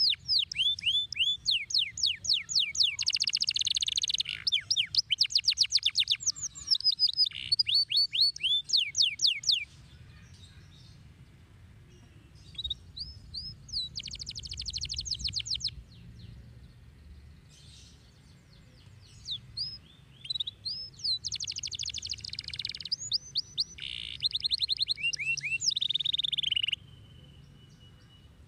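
Domestic canary singing: fast trills of rapidly repeated, sharply falling notes, loudest through the first ten seconds, then shorter trill bursts between pauses, and a brief held steady note near the end.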